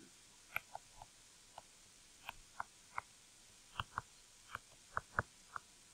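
Stylus tip tapping and clicking on a tablet screen while handwriting, about a dozen faint, irregular ticks.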